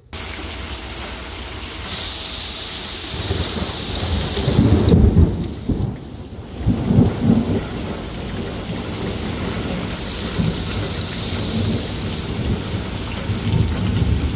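Thunderstorm: steady rain falling hard, with thunder rumbling low several times, loudest about five seconds in and again around seven seconds.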